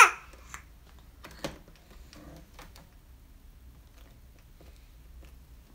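A baby's hands slapping and tapping a high chair tray: one loud slap at the start, then two lighter taps within the next second and a half, then only faint small sounds.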